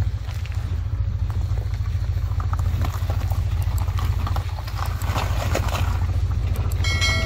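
A vehicle engine running steadily with a low, evenly pulsing rumble while the boat trailer rolls down the stony bank on a tow strap, with gravel crunching under its tyres. A short bright tone sounds near the end.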